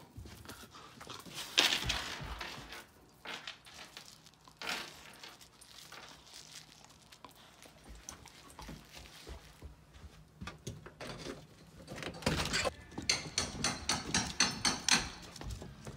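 A black Labrador's paws and claws clicking in quick steps on a wooden deck, after scattered knocks and a loud thump about a second and a half in.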